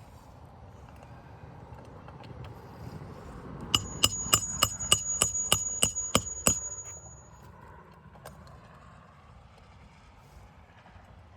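Hammer driving a roofing nail into a shingle: about ten quick, evenly spaced blows in three seconds, each with a high metallic ring, starting a few seconds in.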